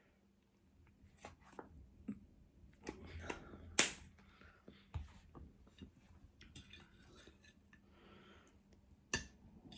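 A person eating: quiet chewing with scattered sharp clicks, the loudest about four seconds in.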